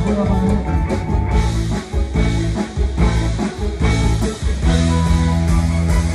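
Live band playing loud amplified music, with a drum kit beating out a steady rhythm under sustained bass and guitar notes.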